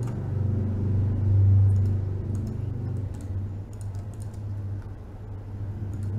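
A low steady rumble that swells about a second and a half in and then eases, with scattered light clicks of a computer mouse and keyboard over it.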